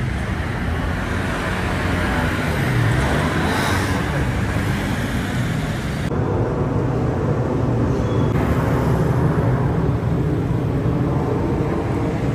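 Busy city street traffic: car and motor scooter engines running and passing, a steady noise with a low engine rumble.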